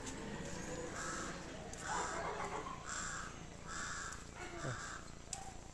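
A crow cawing: five harsh caws, about one a second.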